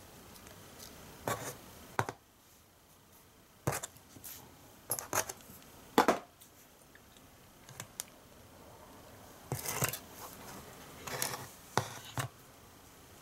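Clicks, taps and light scrapes of small plastic and metal compact-camera parts being handled and set down on a worktable, with the loudest knock about six seconds in as the lens unit is put down.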